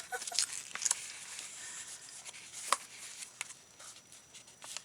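Paper being handled at a craft table: soft rustling with scattered light taps and clicks, the sharpest about two and a half seconds in.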